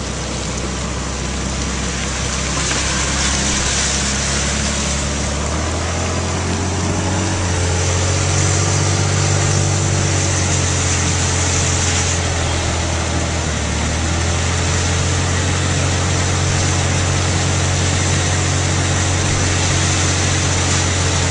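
Car engine running slowly, heard from inside the cabin, with a steady hiss of heavy rain on the car. The engine's hum changes pitch about six seconds in and again near fourteen seconds.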